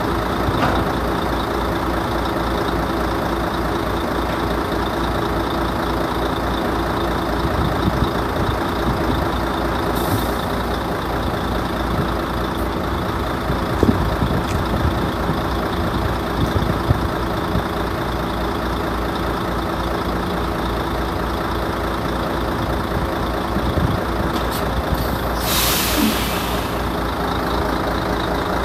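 Mercedes-Benz Actros truck's diesel engine running steadily at idle. A short hiss of compressed air from the air brakes comes near the end, and a fainter one about ten seconds in.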